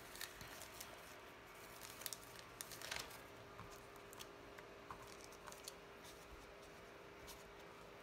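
Faint rustling and crinkling of a plastic zip-top bag with a few light clicks, busiest about two to three seconds in, over a faint steady hum.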